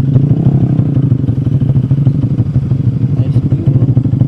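An engine running steadily, a loud low hum with a fast, even pulse.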